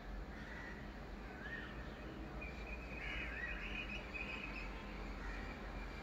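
Birds calling in the morning: short wavy whistled notes, with a denser run of calls in the middle, over a steady low background hum.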